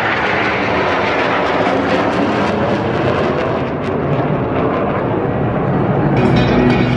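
A formation of four military jets flying over, a loud steady rush of jet noise. About six seconds in, a marching band starts playing over it.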